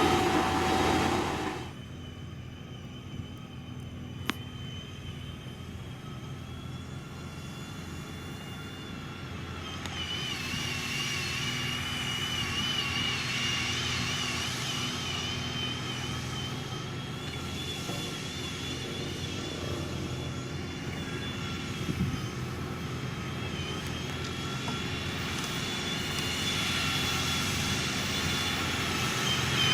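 Diesel engine of heavy road-construction machinery running steadily, with a low hum and a high wavering whine over it. A louder machine sound cuts off abruptly a second or two in, and there is one sharp click a few seconds later.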